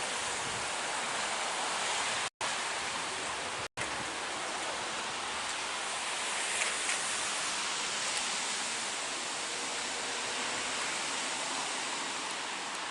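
Heavy rain falling in a steady hiss, cut by two brief dropouts to silence a couple of seconds in.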